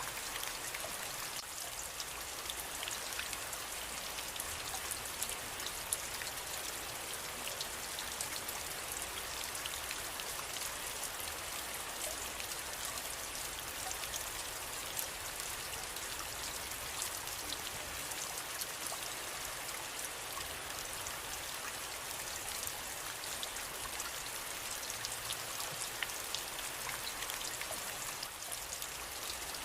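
Steady rain falling, with many individual drops pattering on a surface.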